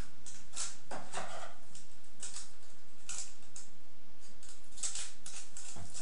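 A run of short, irregular clicks and rustles from hands handling small objects at a table, a few a second.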